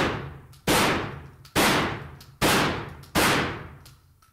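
12-gauge shotgun fired five times in rapid succession with double-aught buckshot, one blast about every 0.8 s, each shot echoing and fading in an indoor shooting range.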